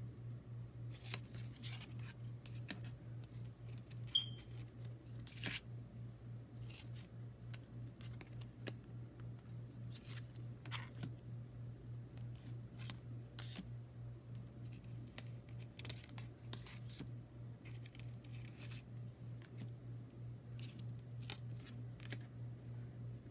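Tarot cards and their packaging being handled by hand: scattered light taps, clicks, scrapes and rustles, with a brief high squeak about four seconds in, over a steady low hum.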